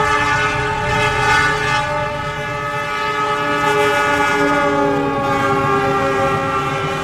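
Diesel locomotive's air horn held in one long blast of several notes sounding together, with the low rumble of the passing train underneath.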